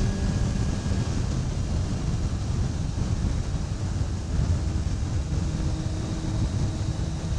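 Yamaha YZF600R's inline-four engine running at a steady cruise, with wind rushing over the microphone.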